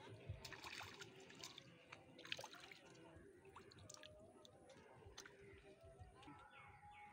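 Faint splashing of a small hooked fish thrashing at the water surface as it is pulled in on a line. There are several quick splashes in the first couple of seconds, the loudest about two and a half seconds in, and then it goes quiet as the fish is lifted clear of the water.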